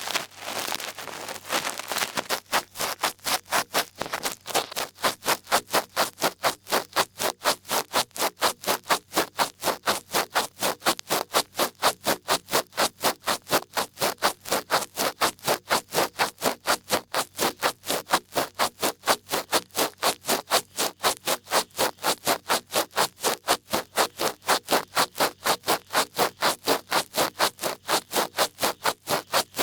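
Large ear pick scraping in quick, even strokes, about three a second, the rhythmic scratching of ASMR ear cleaning. A denser stretch of rustling comes before the strokes start about two seconds in.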